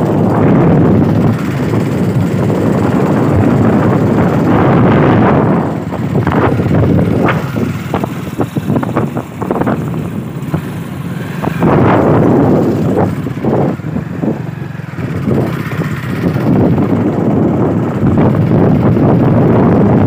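Wind buffeting the microphone over the running noise of a moving motorcycle, loud and rough, easing and turning choppy for a few seconds midway before building again.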